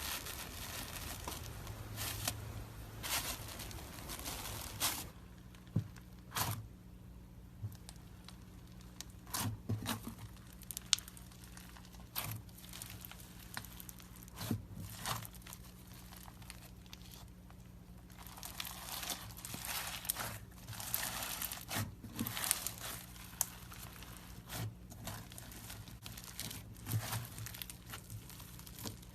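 Slime being squeezed and stretched by hand, making irregular crinkling, crackling and popping sounds with occasional sharp clicks. A faint steady hum comes in about five seconds in.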